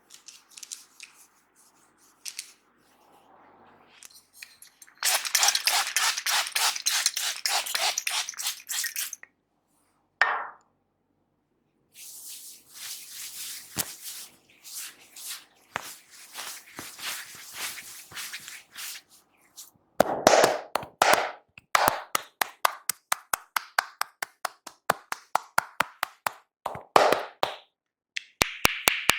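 Hands striking the head and shoulders in a percussive massage: fast runs of short tapping and slapping strikes, heavier and deeper slaps in the second half.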